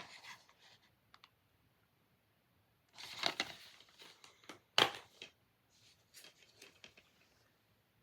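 Plastic DVD and Blu-ray cases being handled: scattered clicks and rustling, with a short rustle about three seconds in and a sharp clack near five seconds.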